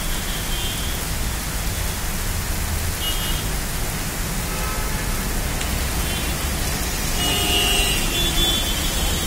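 Heavy monsoon downpour: a steady, dense hiss of rain pouring down and splashing on the pavement, with a low rumble underneath.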